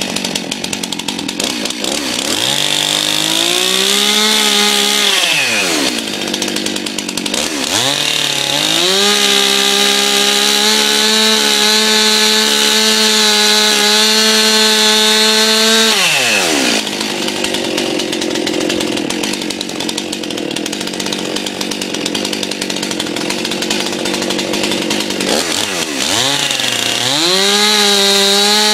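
Stihl MS 261 C-M two-stroke chainsaw revving to full throttle and cutting through a log, then dropping back to idle between cuts. It revs up three times: briefly about two seconds in, in a long steady cut from about eight to sixteen seconds, and again near the end.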